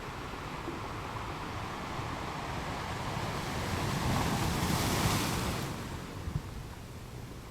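Ocean waves breaking on a beach: a steady wash that swells as a wave breaks about five seconds in, then recedes.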